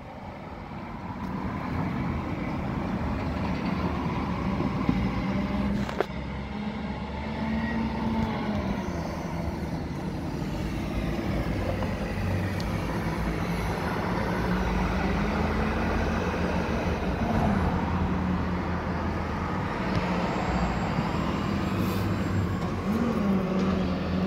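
Steady drone of a large engine, swelling over the first couple of seconds, its pitch drifting up and down a little. It is most likely construction machinery running on a building site. A single sharp click comes about six seconds in.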